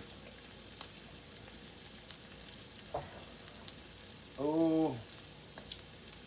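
Beef, mushrooms and vegetables sizzling steadily in an oiled skillet, with scattered small pops and crackles. A short hummed voice sounds about four and a half seconds in.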